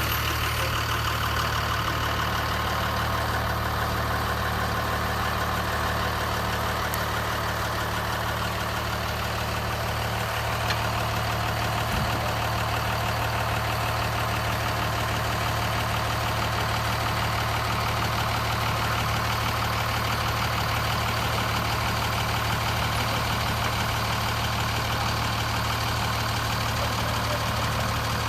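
Steady engine idling drone, the built-in engine sound effect of a toy RC dump truck, with a brief click about twelve seconds in.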